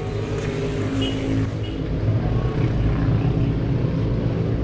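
A steady, low engine hum, as from a motor vehicle running, that gets slightly louder about two seconds in.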